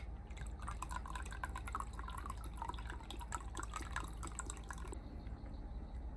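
Liquid trickling and dripping into a container, a dense run of small bubbly splashes that stops abruptly about five seconds in.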